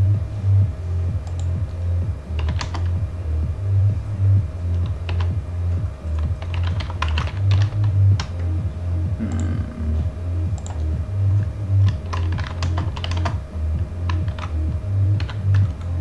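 Computer keyboard typing in short bursts of clicks, over electronic background music with a steady pulsing bass beat.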